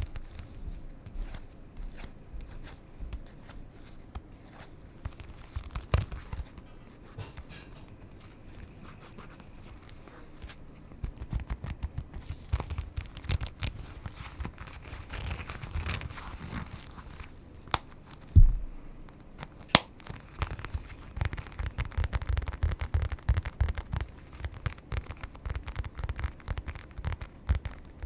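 Close-miked ASMR crinkling and rustling: a dense run of small crackles and clicks with low handling thumps, busier in the second half, and one sharp thump about 18 seconds in.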